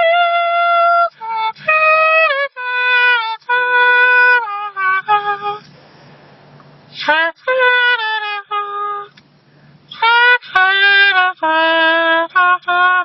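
A saxophone-like tune played with cupped hands and mouth: a melody of held notes and short phrases, with a break of about a second roughly halfway through.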